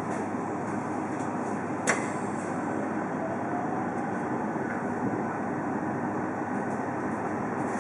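Interior running noise of a JR Central 313 series electric train pulling away from a station, with the Toshiba IGBT-VVVF inverter and traction motors giving a faint whine that rises in pitch as it gathers speed. One sharp click sounds about two seconds in.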